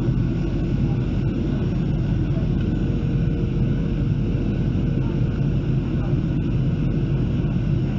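Steady cabin noise of a Boeing 737-800 in flight, heard from a seat over the wing: a deep, even rumble from its CFM56 engines and the airflow past the fuselage.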